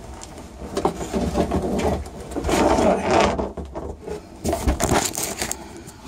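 Clothing rustling and a body scraping and bumping against the edges of a boat hatch as a man climbs up out of a cramped compartment, with a few sharp knocks about five seconds in.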